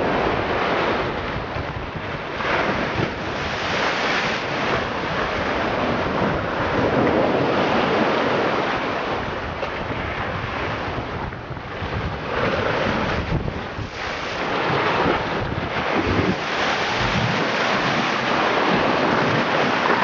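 Sea surf surging into a narrow rock inlet and churning into white water, a continuous rush that swells and eases every few seconds, with wind buffeting the microphone.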